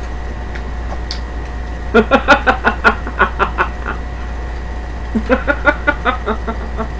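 A woman laughing loudly in two bouts of quick, repeated ha-ha pulses, the first about two seconds in and the second near the end, each lasting about a second and a half.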